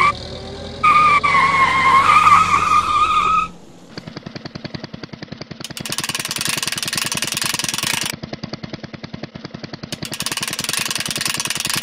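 Added sound effects for a clay tow truck: for about three and a half seconds a wavering tire squeal sounds over a running engine, then comes a fast, steady rattling clatter, the sound of the truck's winch reeling in its cable. The clatter grows louder and brighter twice, from about six to eight seconds in and again near the end.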